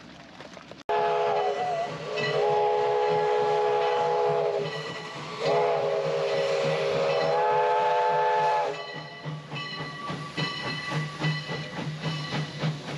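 Steam locomotive's chime whistle blowing several loud, long blasts, each a chord of several notes, the last one stepping up in pitch before it stops about nine seconds in. After that the moving train's rhythmic clatter and steam hiss go on.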